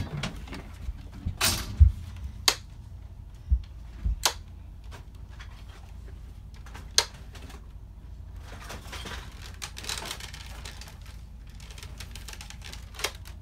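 Irregular sharp clicks and a few dull thumps, most of them in the first four seconds, with one more click near the end. Soft rustling of movement comes around the middle.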